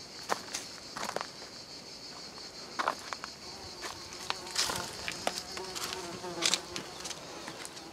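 A steady, high insect drone with irregular footsteps on dirt and stone underneath it.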